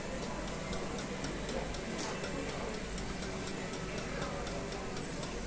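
Faint, fast, regular ticking, about four ticks a second, over a steady low hum from a running hemodialysis machine.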